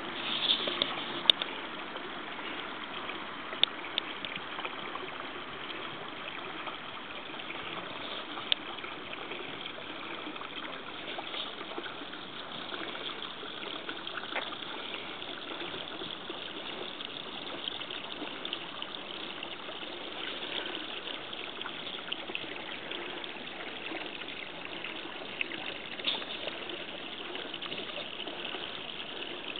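Water trickling steadily into a garden lily pond, an even running sound that does not change. A few sharp clicks stand out in the first several seconds.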